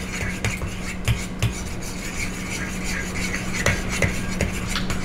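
A spoon stirring and scraping thick pumpkin batter in a glass bowl, with a few sharp taps of the spoon against the bowl. A steady low hum runs underneath.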